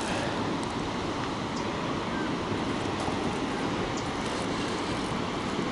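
Steady rushing roar of water pouring over a dam spillway.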